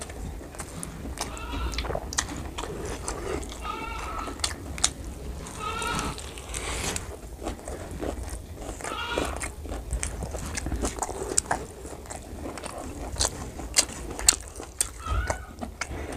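Close-up wet chewing and lip-smacking from eating curry and rice by hand, with many sharp mouth clicks. Several short, high-pitched, arching cries sound through it, each about half a second long.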